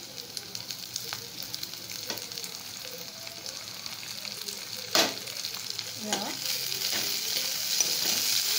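Onion and capsicum sizzling in a hot metal wok as tomato slices go in and are stirred with a steel spoon. There is a sharp clank of the spoon against the wok about five seconds in, and the sizzling grows louder toward the end.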